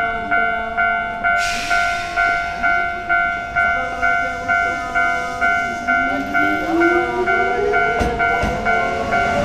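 Japanese level-crossing alarm bell dinging steadily about twice a second, while an electric train's traction motors whine, rising steadily in pitch as it accelerates from about six seconds in. A hiss starts about a second and a half in, and a few knocks come near the end.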